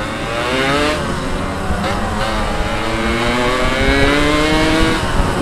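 Two-stroke Yamaha RX-King motorcycle engine pulling under way. Its pitch climbs, dips about a second in as if shifting gear, then rises slowly for several seconds before easing off near the end.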